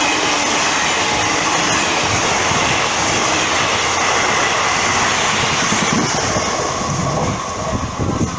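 A WAP5-hauled passenger train running through at speed, a steady loud rush of wheels on rails and passing coaches. Uneven low thumping of wheels over rail joints comes through in the last couple of seconds.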